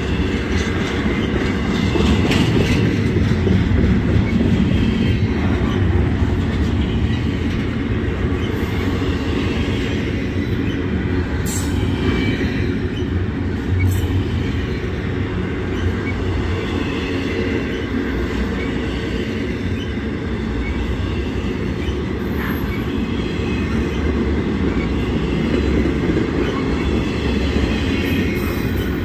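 Double-stack intermodal freight train rolling past: a steady loud rumble of steel wheels on rail, with faint high wheel squeal and a few sharp clicks from the wheels and couplings a little before and after halfway through.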